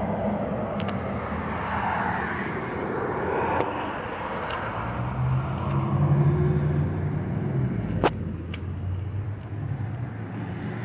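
Outdoor road traffic: a motor vehicle's engine running and passing, loudest around the middle, over a steady rush of background noise, with a few sharp clicks.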